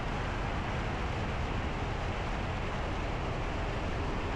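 Cessna 172B's piston engine and propeller droning steadily in flight, mixed with airflow noise, at an even level throughout.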